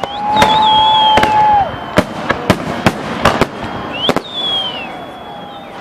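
Fireworks display: a string of sharp bangs and crackling bursts, with high whistling tones between them that hold and then fall away.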